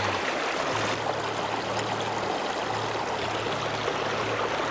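Mountain stream running over rocks in a steady, even rush of water.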